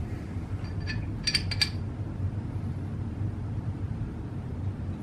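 A few light metallic clinks with a short ring, about a second in, as a quarter-inch Icon ratchet wrench's drive is fitted onto a torque gauge. A steady low hum runs underneath.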